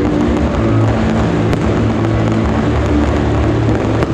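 Loud music playing through a fireworks display, with a few sharp firework pops: one about a second and a half in, another near the end.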